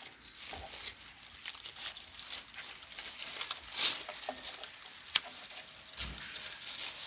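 Thin polythene grafting strip crinkling and rustling in the hands as it is wrapped around a mango graft, with a sharp click about five seconds in.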